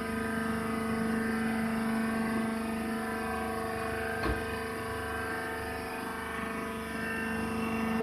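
Hydraulic baling press running: the power unit's motor and pump give a steady hum, with a single short knock about four seconds in.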